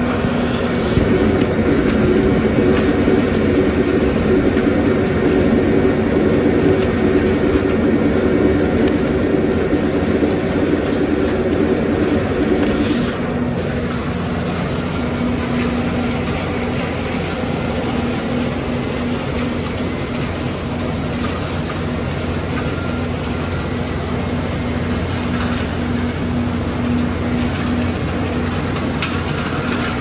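Thermal drying system of a PP raffia recycling line running: a steady machine drone with a low hum, shredded plastic flakes being blown through it. The hum changes about 13 seconds in, then holds steady again.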